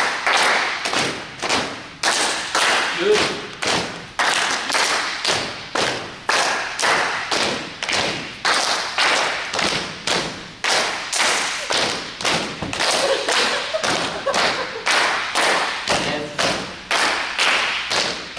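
A group of people keeping a steady rhythm of hand claps and thigh slaps, roughly two to three strokes a second, with a few voices between the strokes.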